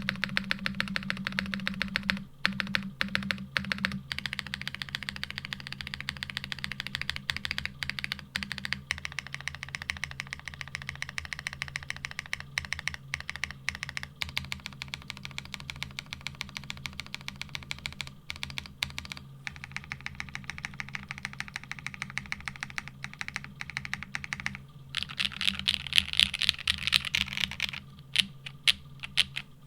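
Fast, continuous typing on a Geonworks Frog TKL mechanical keyboard, with a louder, busier flurry of keystrokes near the end.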